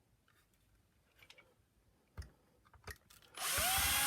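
A few light plastic clicks from handling the vacuum head. About three seconds in, a power screwdriver spins up with a rising whine and runs steadily, backing out the small screw that holds the upright switch in place.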